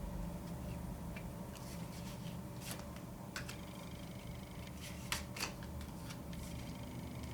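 Tarot cards being handled, with a few light, scattered clicks and slides of card stock, over a steady low hum.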